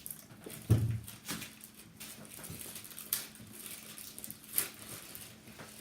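Game box packaging being opened and handled: scattered clicks and rustles, with a short, low, voice-like sound about a second in.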